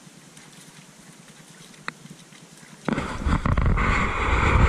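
Fairly quiet forest background with a single click. About three seconds in, a sudden loud rubbing and rustling noise with low thumps starts and continues: handling noise on a handheld camera as it is swung about.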